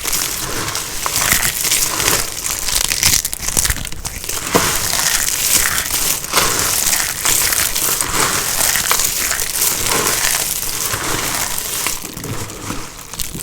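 Dry, crunchy soap crunching and crackling as it is crushed and cut, a dense, continuous run of small crisp cracks.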